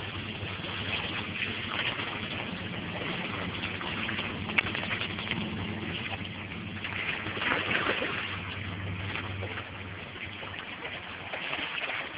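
Steady rushing and splashing of a creek's running water, with one short sharp knock about four and a half seconds in.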